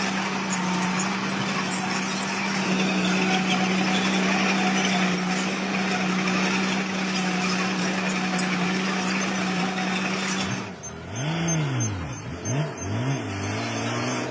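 Heavy diesel engine of earth-moving machinery running steadily at one speed. About three-quarters of the way through the sound changes abruptly to an engine whose pitch rises and falls several times as it is revved up and down.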